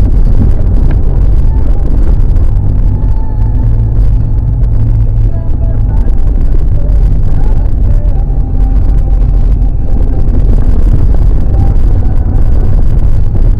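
Vehicle engine running at low road speed, with steady low rumble and road noise from driving over a rough dirt road.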